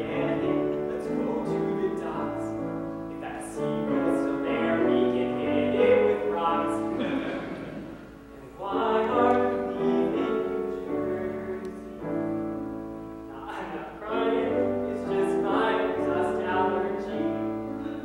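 A man singing a musical-theatre song solo, accompanied by piano, in phrases with short breaks between them.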